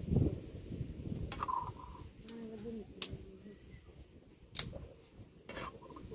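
Steel ladle clinking against a steel kadhai and tumbler as curry is ladled out: a low knock at the start, then several sharp clinks a second or so apart. A bird calls briefly in the middle.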